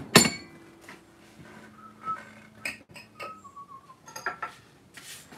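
A sharp metallic clink just after the start, then light clinks and knocks of metal tools being handled on a workbench, with a few soft whistled notes in the middle.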